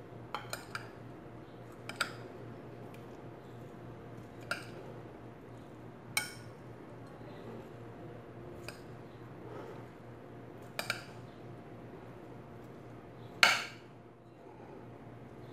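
Metal spoon mixing a chopped potato and chickpea salad in a bowl, clinking sharply against the bowl's rim every second or two; the loudest clink comes near the end.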